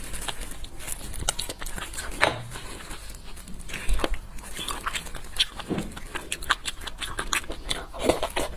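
Close-up eating sounds as soft braised beef bone marrow is eaten: a rapid run of wet mouth clicks and smacks with small sucking noises.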